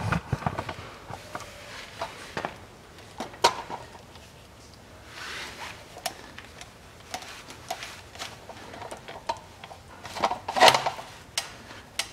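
Handling noises: scattered light clicks and knocks, a soft rustle about five seconds in, and a louder short clatter about ten and a half seconds in.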